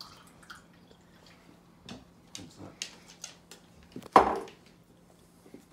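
A glass bottle and small plastic cups handled on a kitchen worktop: scattered light knocks and clicks, with one louder knock about four seconds in.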